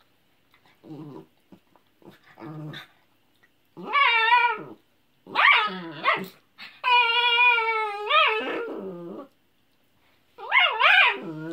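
Mini Australian shepherd making play noises while mouthing a person's fingers: a few short, low, quiet sounds at first, then from about four seconds in a run of loud, pitched, drawn-out cries, the longest held for more than a second.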